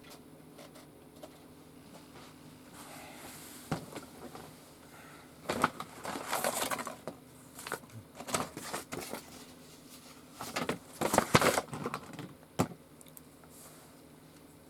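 Plastic clicking and rattling in scattered bursts, as a Rubik's cube is handled and its layers twisted; the busiest stretches come around six seconds in and again around eleven seconds in.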